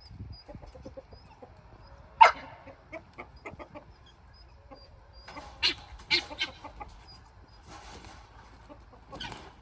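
Poultry calling: one loud, sharp squawk about two seconds in and a few shorter clucks after it. Scuffling and rustling follow as the birds are chased to be caught.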